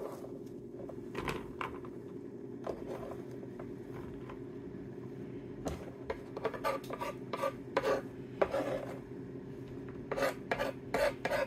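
Chopped food being swept by hand across a wooden cutting board and dropped into a silicone baking liner, with short rubbing and knocking sounds. Near the end, a knife blade scrapes the remaining bits across the board in quick strokes. A steady low hum runs underneath.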